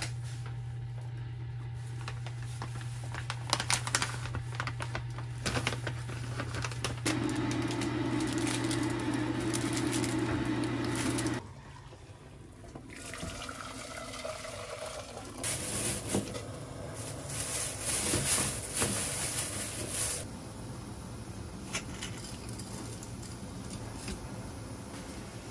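Kitchen cooking sounds: a steady low hum with clattering for about the first eleven seconds, which cuts off suddenly. Then hot water from an electric kettle is poured into a stainless steel pot, a gush that lasts several seconds.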